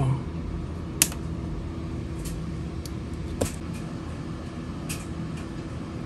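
Wire cutters snipping through a thin red wire: one sharp click about a second in, then a few fainter clicks of the tool, over a steady low hum.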